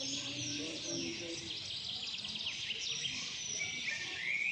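Several small birds chirping at once: a dense chorus of quick, high chirps and short down-sweeping notes, with a rising whistle near the end.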